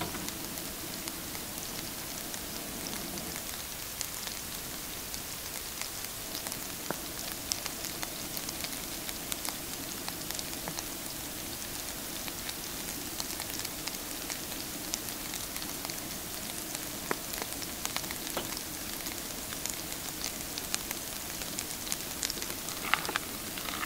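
Seasoned oil sizzling in a frying pan on a propane camp stove: a steady hiss with many small crackling pops. Near the end a steak is laid into the hot pan.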